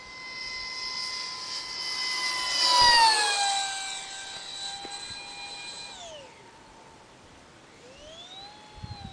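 Electric ducted fan of a Phase 3 F-16 model jet whining through a high-speed pass. The whine grows louder, then drops sharply in pitch about three seconds in as the jet flies by, the Doppler shift. It winds down near six seconds and spools back up near the end.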